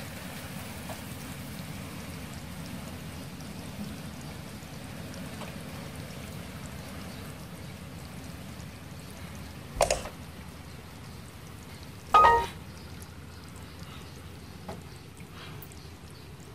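Steady hiss-like noise of a mass of baby black apple snails feeding on fruit and water lettuce. Two brief louder sounds come about two seconds apart, about two-thirds of the way through, the second with a pitched ring.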